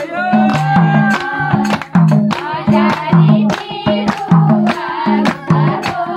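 Nepali folk song sung to a madal drum beat with hand clapping: a singing melody over a steady low drum stroke about twice a second, with sharp claps and slaps throughout.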